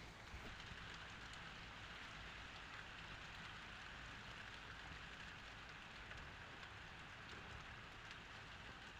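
Steady rain falling: a faint, even hiss with a few scattered drop ticks.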